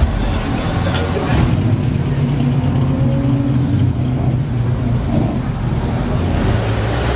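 Car engine running at low revs with a steady low rumble, with the sound changing about a second and a half in.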